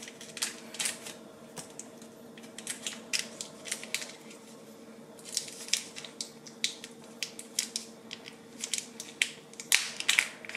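A small packet crinkling and crackling as long fingernails pick and pull at it, struggling to tear it open: irregular short sharp crackles throughout, with a faint steady hum underneath.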